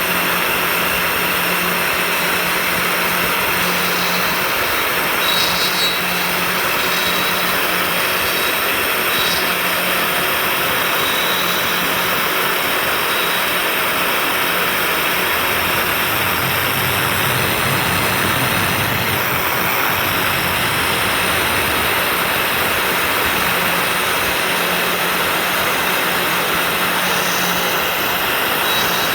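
CNC 3018 Plus desktop router milling with its dust extraction suction running: a steady, loud rushing noise with a low hum that comes and goes as the cut changes.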